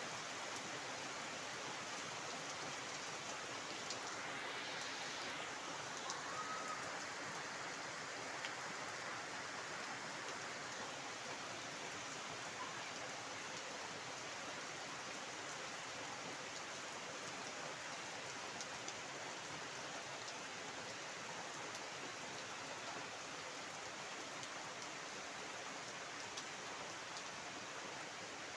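Heavy rain falling steadily onto a flooded yard's standing water and leafy trees: a dense, even hiss of rain with scattered drop splashes.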